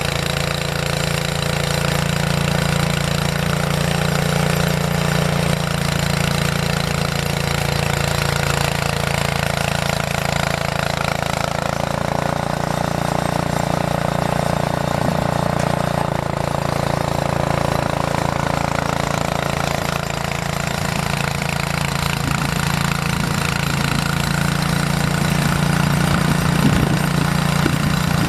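Engine of a snow-clearing machine running steadily at a constant speed, a loud, even drone. There are a few short knocks and clatters near the end.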